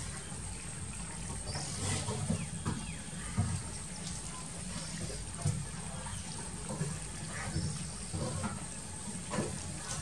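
Domestic ducks quacking now and then in short calls on a pond, with a few thin, high chirps.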